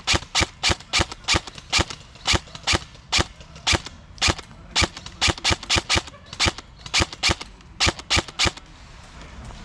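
Airsoft guns firing in rapid single shots, about three a second in runs with short pauses, stopping near the end.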